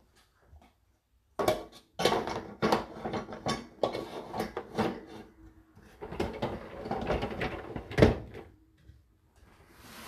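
Cookware and dishes clattering and knocking in a dishwasher's wire racks as they are loaded, with the racks rattling and rolling on their rails. The knocks come one after another for most of the time, and the sharpest is about eight seconds in.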